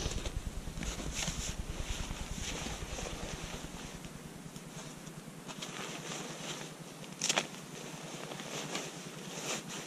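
Rustling and scattered scuffs of fabric and gear as a hiker packs his shell jacket into his backpack. Wind rumbles on the microphone for the first few seconds and dies away about four seconds in.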